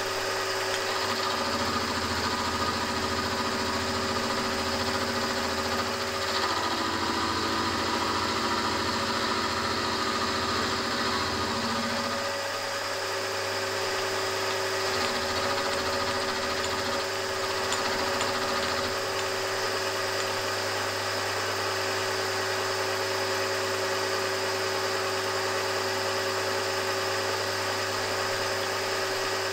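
Milling machine running, its end mill cutting the ends of glued-together mild steel crank-web blanks to length. The low part of the sound wavers for the first dozen seconds, then runs steadier.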